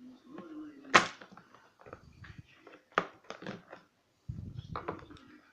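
Small metal lock parts clicking and knocking as a lock is taken apart by hand, with a sharp click about a second in and another about three seconds in, several fainter ticks, and some low rubbing handling noise near the end.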